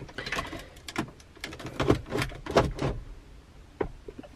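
Irregular plastic clicks and rattles as a loose aftermarket car-stereo head unit and the dashboard panel around it are pushed and jiggled by hand. The radio sits loosely in its mounting and works partway out of the dash.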